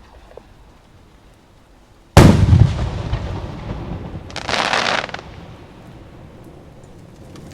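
Aerial firework shell bursting about two seconds in with a single sharp, loud boom and a long rumbling echo, followed about two seconds later by a second-long hiss from the burst's effects.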